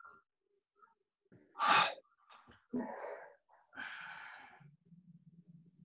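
A man breathing hard and strained, with several sharp, wheezy exhalations, under the pressure of a painful ball mobility drill for the chest and shoulder. Near the end, a low steady hum sets in.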